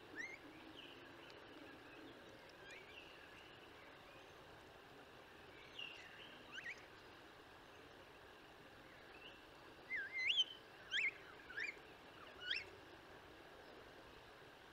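Tristram's starlings calling in short whistles that swoop up and down in pitch: a few scattered calls, then a quick run of four or five about ten seconds in, over a faint steady background hiss.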